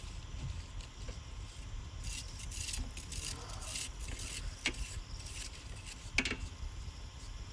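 Hollow bamboo tubes clattering and rustling as they are handled and piled, with two sharp knocks in the second half.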